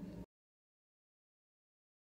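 Complete digital silence: the soundtrack drops to nothing right after the last of a woman's narrating voice fades out, a quarter second in.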